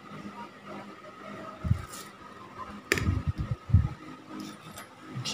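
A few soft low thumps and one sharp click about three seconds in, over a faint steady hum.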